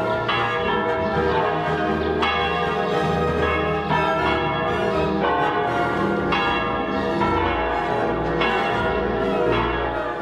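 Church bells ringing in the bell tower, a fresh stroke about every one to two seconds, each ringing on under the next.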